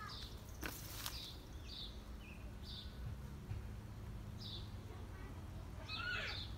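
A small bird chirping outdoors: short high chirps repeating about once a second, with a longer, more complex call about six seconds in, over a steady low background hum. A brief scratchy noise comes about a second in.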